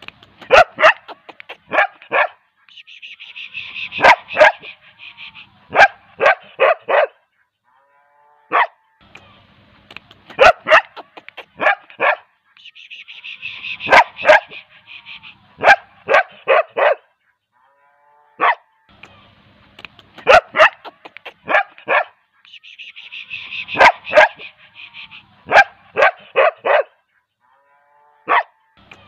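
A dog barking in quick runs of two to five sharp barks, with short pauses between the runs. The same sequence of barks comes round three times, about every ten seconds.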